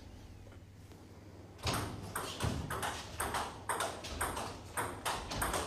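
Table tennis rally: the ball clicking sharply off the bats and the table in quick alternation, about three hits a second. The hits start about a second and a half in, after a short quiet moment.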